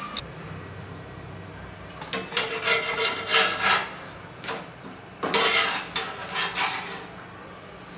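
Metal spatula scraping and rubbing on a flat tawa griddle in two spells of short strokes, as a paratha is slid and turned on it.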